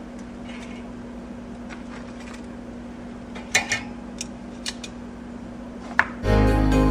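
Metal tongs clicking lightly against a wire cooling rack as fried chicken cutlets are set down: a few scattered clicks over a faint steady hum. Near the end comes a sharp knock, then jingly background music.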